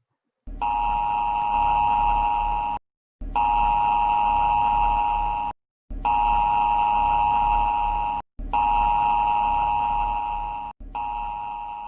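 Emergency alert attention signal: a loud two-tone alarm sounded as five long blasts of about two seconds each with short breaks. The last blast fades away near the end.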